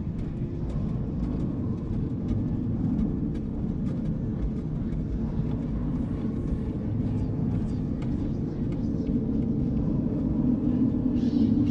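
Dark ambient drone: a steady low rumble with faint scattered crackles, swelling slightly near the end.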